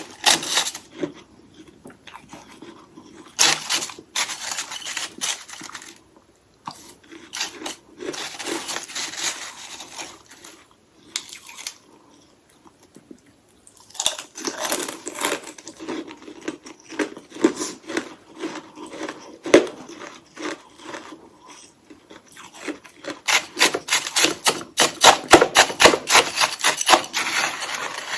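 Close-miked biting and crunching of hollow ice sticks coated in freezer frost, in bouts with short pauses. It ends in a long run of rapid crunches.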